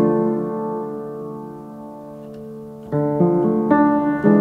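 Piano music: slow sustained chords, one struck at the start and left to ring and fade, then several more struck close together about three seconds in.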